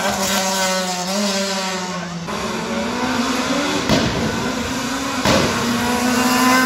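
A gymkhana car's engine working hard through a coned course. Its pitch eases off in the first two seconds, then climbs steadily as the car accelerates again, with a couple of short sharp sounds in the middle.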